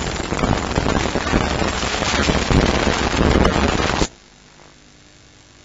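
Weapons fire from an HAL Rudra armed helicopter: a loud, dense crackling burst that cuts off abruptly about four seconds in.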